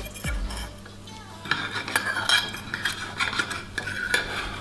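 A metal knife cutting through the crisp crust of a baked puff-pastry pie, crunching and scraping against the baking dish, with a few sharp clicks of metal on the dish.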